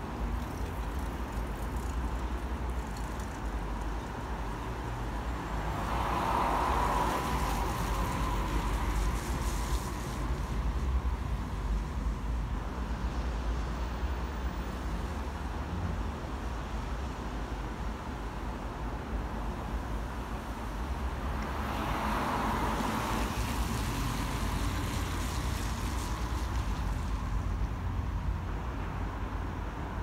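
Road traffic passing, with two vehicles swelling past about six and twenty-two seconds in over a steady low rumble.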